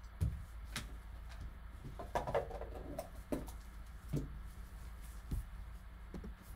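Quiet handling of trading cards and a cardboard box: scattered light taps and clicks, with a brief soft cluster of sound about two seconds in.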